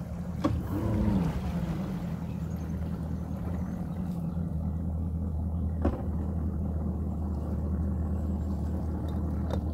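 Boat motor idling steadily at a boat launch, a low hum with a brief rise and fall in pitch about a second in. Three sharp knocks cut through it.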